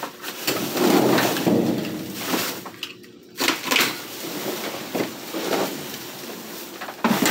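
Clear plastic bags crinkling and rustling as they are handled and shifted inside a steel dumpster, in two stretches with a short lull about three seconds in.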